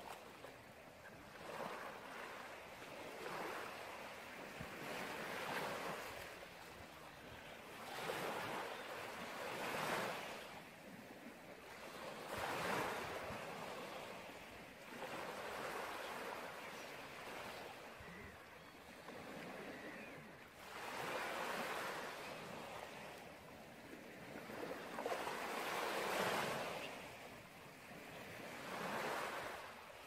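Sea surf: waves washing in and drawing back, a swell of hissing noise every two to three seconds.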